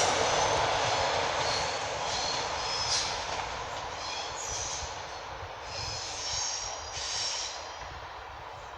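An electric InterCity 225 train hauled by a Class 91 locomotive, going away along the line after passing, its rail and wheel noise fading steadily. Short high-pitched squeals from the wheels come and go over the fading noise.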